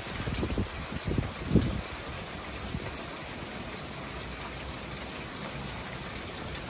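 Steady rain falling during a passing storm, with a few low, gusty rumbles of wind on the microphone in the first two seconds.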